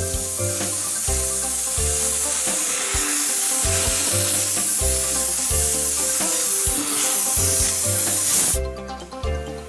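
Loud steady hiss of steam blowing from a steam locomotive, cutting off suddenly near the end, over background music with a repeating bass line.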